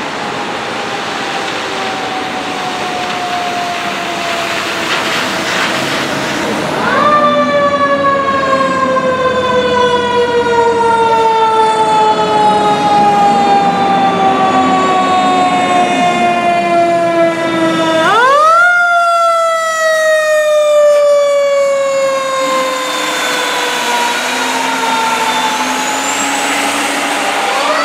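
A fire engine's siren wailing and winding down slowly, then winding up sharply again about a quarter of the way in, again about two-thirds of the way in, and once more at the very end. Each rise is quick and each fall is long and gradual, like a mechanical siren's rotor being spun up and left to coast down.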